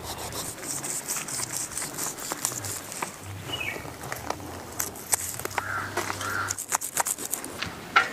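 Knife blade scraping the scales off a rohu fish in repeated short strokes, thickest in the last few seconds, with a crow cawing twice a little past the middle.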